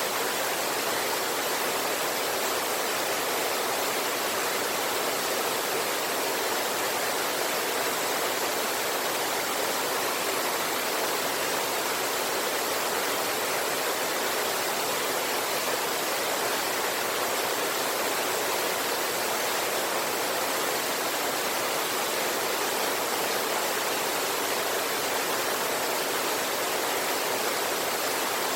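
Steady, unbroken rush of flowing river water, mostly hiss with little low rumble.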